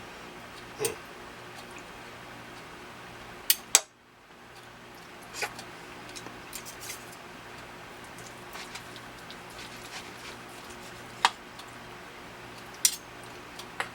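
Utensils clinking and tapping against a dish in scattered sharp clicks, the two loudest close together about three and a half seconds in, over a steady faint hum.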